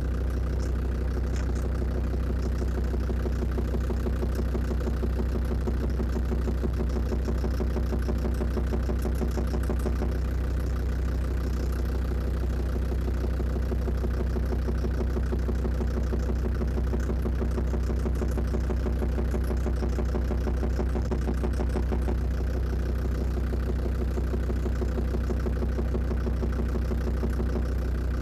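Land Rover Defender TD5 five-cylinder turbodiesel idling steadily, picked up at the snorkel intake, with a steady repeated knock that has not gone away as the engine warmed up. The owner puts the knock down most likely to faulty hydraulic lifters.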